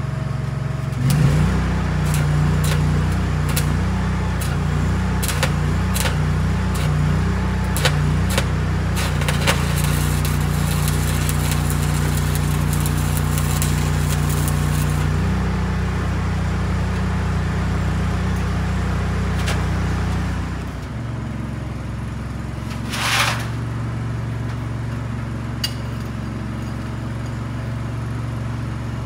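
Arc welding on the bus's rusted steel underbody: crackling, with sharp snaps as the arc strikes, most of it in the first half and a short burst again later. Under it a steady low machine hum runs throughout and changes note about two-thirds of the way through.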